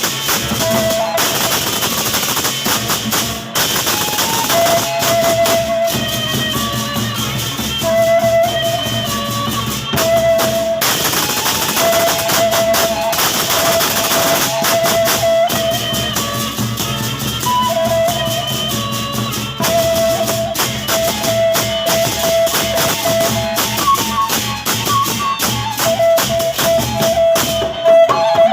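Lombok gendang belek ensemble playing: large drums and cymbals in a dense, fast beat under a sustained wind melody that steps between a few notes.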